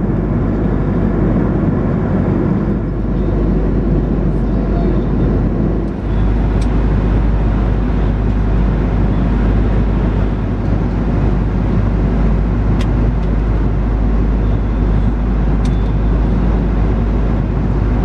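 Airbus A330-200 cabin noise: a steady, loud rumble of the engines and airflow, with a brief dip about six seconds in.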